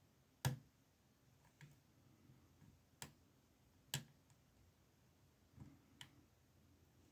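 Sparse small clicks and taps of a lock pick and tension wrench working in a small padlock's keyway: about five separate clicks, the loudest about half a second in, the rest spread a second or two apart.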